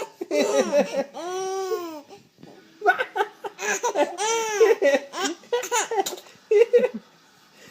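A four-month-old baby laughing in several bursts with short pauses between, including long, high squealing laughs whose pitch rises and falls.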